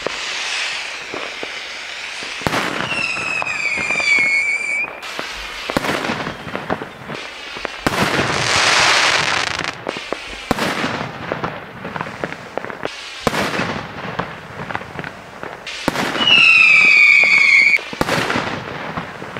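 Fireworks: rockets bursting with a string of sharp bangs, two long whistles that fall slightly in pitch, and a stretch of hissing crackle about halfway through.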